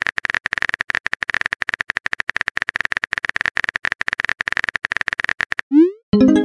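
Phone keyboard typing sound effect: a rapid run of clicks that lasts about six seconds, then stops. Near the end comes a quick rising swoop and a short chiming tone, the sign that a message has been sent.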